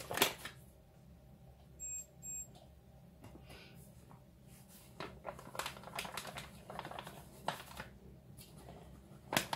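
Two short electronic beeps, typical of a digital kitchen scale, about two seconds in. Later a paper bag of self-raising flour rustles and crinkles as flour is tipped into a plastic mixing bowl, and there is a sharp knock near the end.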